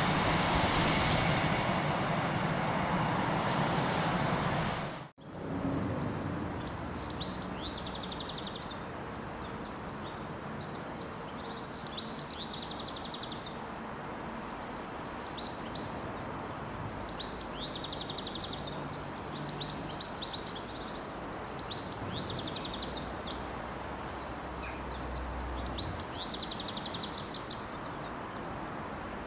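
Rumble of a freight train's wagons running away down the line, cut off abruptly about five seconds in. Then songbirds singing repeated trilling phrases over a faint low rumble from a Class 66 diesel locomotive, its two-stroke V12, approaching in the distance.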